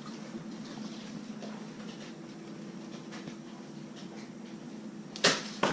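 Faint scattered clicks and rustles, then two sharp clacks in quick succession near the end.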